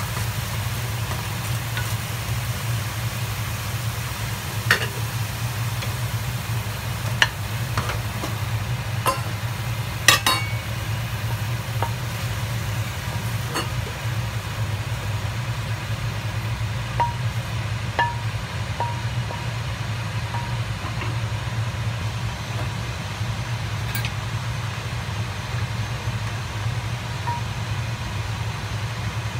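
Cooked chicken pieces stirred and scraped out of a stainless steel frying pan with a wooden spoon: faint sizzling and scattered sharp taps of the spoon against the metal pan and bowl, over a steady low hum.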